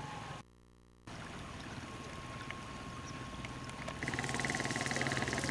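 Steady rumble of a moving vehicle, heard from inside, cutting out briefly about half a second in. About 4 s in it jumps to a louder rumble with a steady high whine.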